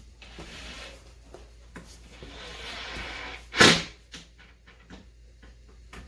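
Hardwood workbench parts being handled, with soft rustling and small clicks and one loud, sharp wooden knock about three and a half seconds in.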